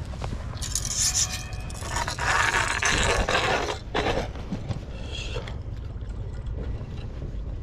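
Scraping and rubbing noises from handling, in spells. There is a short one about half a second in, a longer, louder one from about two seconds to nearly four, and a brief one at about four seconds.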